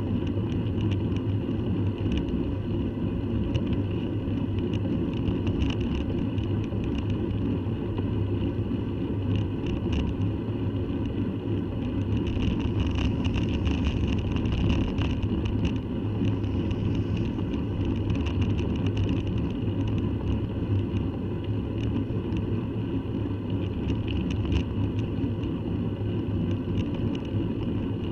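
Steady wind rumble on a bicycle-mounted camera's microphone and tyre noise on tarmac while riding uphill. A car towing a trailer passes about halfway through, raising the hiss for a few seconds.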